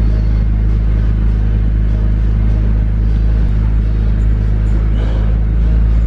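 A loud, steady, low-pitched mechanical hum.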